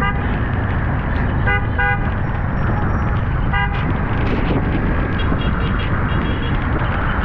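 Vehicle horns giving short toots in street traffic: one at the start, a quick double toot about one and a half seconds in, another about three and a half seconds in, and fainter, higher beeps a little later. Under them runs a steady, loud rumble of engines and road noise.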